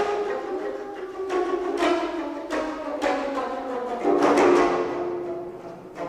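An ensemble of four geomungo, Korean zithers each tuned differently, playing contemporary music. The strings are struck and plucked in a series of sharp strokes that ring on, with a louder stroke about four seconds in.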